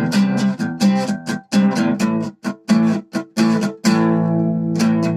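Acoustic guitar strummed in a steady rhythm, several strums choked off short, then a chord strummed and left to ring about four seconds in.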